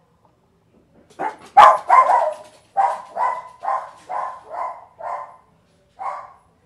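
A dog barking, about ten barks in quick succession, starting about a second in.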